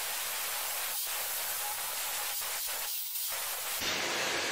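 Angle grinder cutting into a steel block held in a vise, a steady hiss of the abrasive disc in the metal; about four seconds in the disc comes off the work and the sound changes.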